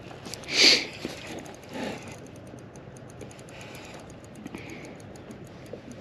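Spinning reel being cranked to bring in a hooked fish, giving a steady run of light clicks, about five a second. A short breathy rush comes about half a second in.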